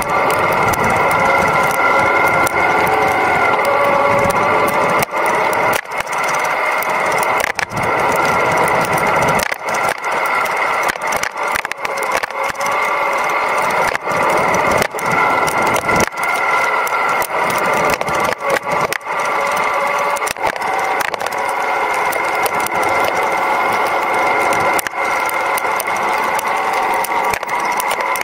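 Yamaha Ténéré 700's parallel-twin engine running at a steady pace while riding a dirt track, heard from a camera mounted on the bike, with many brief dropouts in the sound.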